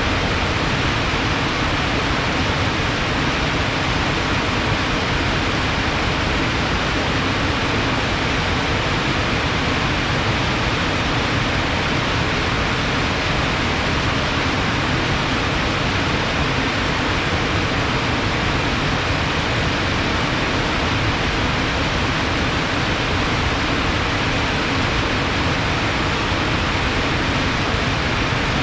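Rain-swollen water rushing fast and steadily, an even unbroken rush.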